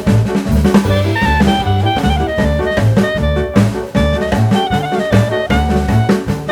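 Background music: an upbeat jazz tune with drums, bass and a horn-like melody, playing at a steady level.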